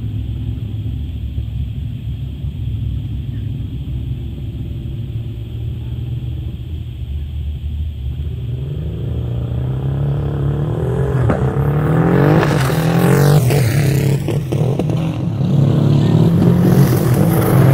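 A high-performance vehicle accelerating flat out down the track toward the microphone, its engine pitch climbing in repeated sweeps through several upshifts and growing louder as it closes in and passes. Before it arrives there is only a steady low rumble.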